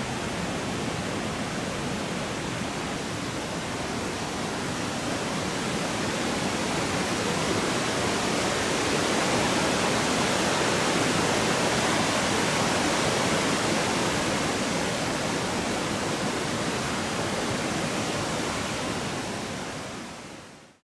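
Waterfall rushing steadily, an even hiss of falling water that swells a little midway and fades out near the end.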